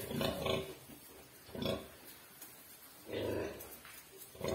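Sow grunting while farrowing: four short, low grunts, about one every second and a half.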